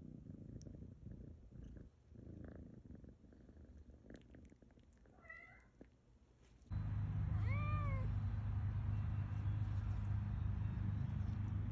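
Domestic cat meowing: a faint short meow about five seconds in, then a louder meow a couple of seconds later. From just before the louder meow a steady low drone sets in suddenly and continues.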